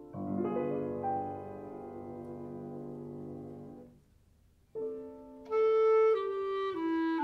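Mellow jazz-inspired chamber music: a piano chord rings and fades, a short pause follows about four seconds in, then a clarinet comes in with a slow melody that steps from note to note over the piano.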